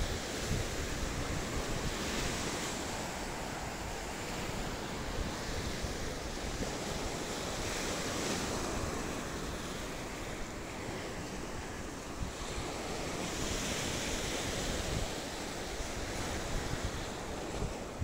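Sea waves washing up the beach, swelling three times about every five to six seconds, with wind rumbling on the microphone.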